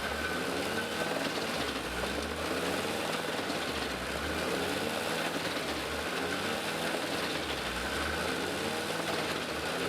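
Tractor-driven Gandini Connecticut drum wood chipper running, powered by a Claas Xerion tractor, with a steady low drone. Its pitch rises and falls in repeated swells every second or two.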